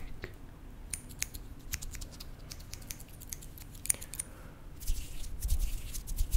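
Small metal scissors opening and closing close to the microphone: a string of crisp, irregular snips and clicks, some with a brief high metallic ring. A soft rustle comes about five seconds in.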